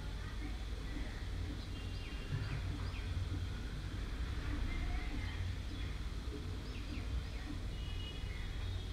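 Small steel mesh sieve shaken and lightly tapped over a steel plate while sifting ground moong dal: faint, soft sounds over a steady low hum, with a few faint high chirps.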